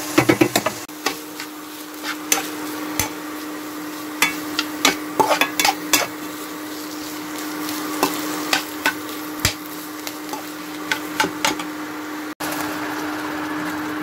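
A steel spatula stirs and scrapes boiled potato pieces frying in a steel kadhai, with irregular metal-on-metal clicks and scrapes over a sizzle. A steady hum runs underneath.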